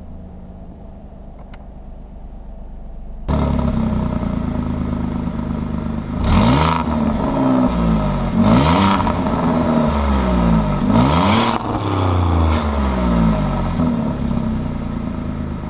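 Alfa Romeo Giulia Quadrifoglio's 2.9-litre twin-turbo V6 idling, then louder from about three seconds in and revved in several sharp blips that rise and fall in pitch. The exhaust is stock, with its flaps closed in Dynamic mode as the car comes from the factory.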